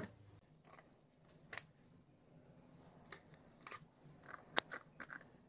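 Faint, scattered clicks and scrapes of a steel spoon against glass as ice cream is scooped from a glass container into glass bowls, with one sharper click about four and a half seconds in.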